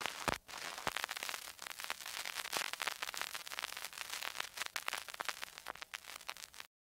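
Crackle effect of old-film or record surface noise: dense, irregular clicks and pops over a hiss. It cuts off suddenly near the end.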